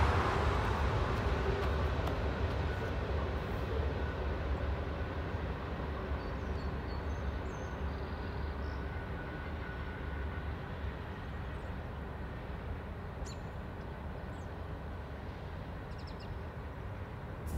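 Freight train rolling away, its noise fading steadily into the distance, over a steady low rumble. A few short bird chirps sound faintly partway through.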